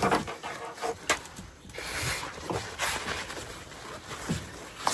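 A man panting hard with effort, with a few sharp knocks, as he strains to push his kayak free of something it is stuck on.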